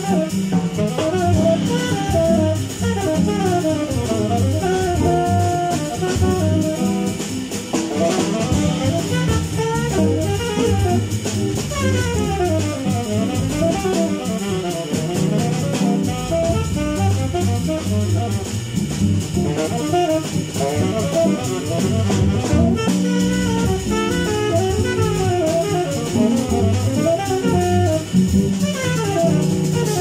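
Live jazz quartet of saxophone, guitar, double bass and drum kit playing at an up tempo. The saxophone leads with quick rising and falling runs over a steady bass line and drums.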